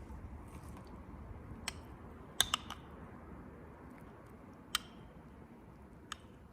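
A few light, sharp clicks over faint low background noise, with a quick run of three about two and a half seconds in and single clicks before and after.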